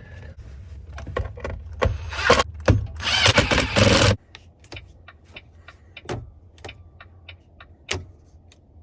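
Power drill/driver running in a short burst about two seconds in, then a longer burst of about a second and a half, driving fasteners back in during reassembly. Afterwards come scattered light clicks and taps.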